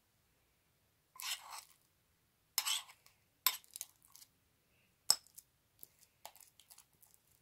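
Metal spoon scraping and clinking against a ceramic bowl while stirring glitter slime. There are two short scrapes, then a few sharp clinks and lighter taps.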